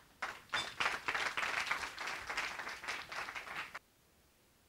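Audience applauding: a crackle of many hands clapping that builds quickly and cuts off suddenly nearly four seconds in.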